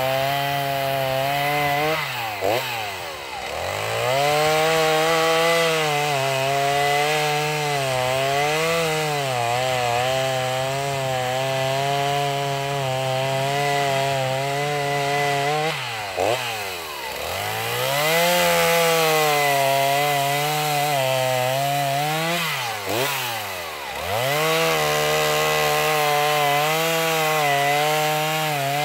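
Chainsaw bucking a log into firewood rounds, running at full throttle with its pitch wavering under load in the cut. Three times the throttle is let off and the engine drops toward idle before revving back up: near the start, about halfway through and around three-quarters through.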